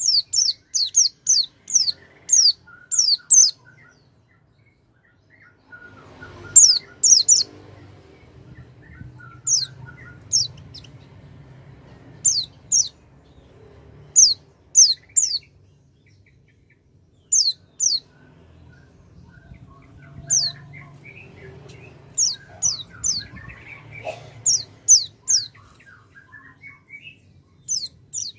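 White-eye (pleci) calling as a lure to set a silent pleci singing: short, high, quickly falling notes in quick bursts of two to seven, repeated every second or two. Fainter lower chirps and a faint low hum sit underneath.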